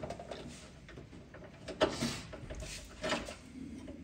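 Screwdriver clicking and scraping as the screws holding the PCB in an inverter split AC's outdoor unit are undone, with two sharper clicks near the middle and about three seconds in.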